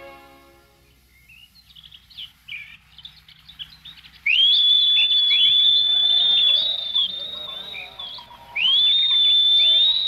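Small bird chirps, then two long high whistled notes. Each whistle glides up quickly and is then held steady for several seconds: the first starts about four seconds in, the second a little before the end. Faint bird chirps go on underneath.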